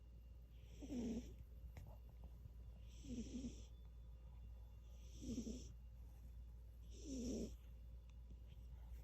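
A sleeping pet snoring: four snores about two seconds apart, each a low rasp with a breathy hiss on top.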